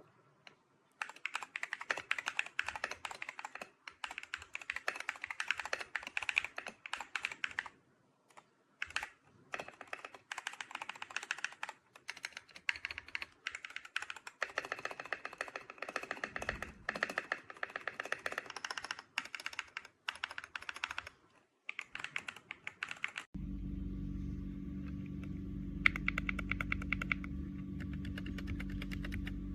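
Rapid typing on a keyboard fitted with Gateron Magnetic Jade (Hall-effect) switches, fast runs of key clicks broken by short pauses. About 23 seconds in, a steady low hum starts under the typing.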